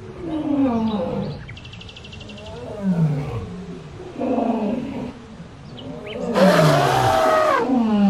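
Deep animal calls that fall in pitch, repeating every second or two, with a louder, harsher call lasting over a second near the end.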